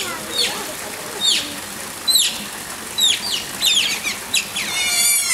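Otters giving repeated high-pitched chirps: short squeaks that each fall in pitch, irregular at about two a second and coming quicker near the end.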